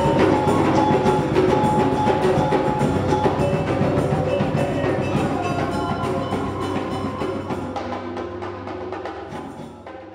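Live percussion ensemble playing, with congas and hand drums over a steady didgeridoo drone. The music fades out over the last few seconds.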